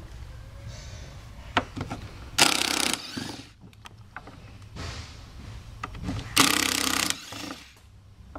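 Cordless drill-driver with a Phillips bit on an extension backing screws out of the upper radiator shroud. It runs in two short spells of under a second each, a few seconds apart, with light clicks from the bit and screws in between.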